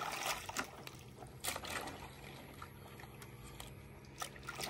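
Water sloshing and trickling in a basin as a batch of plastic hydroponic planting cups is swished around and rinsed by hand, with a few light clacks of the cups knocking together.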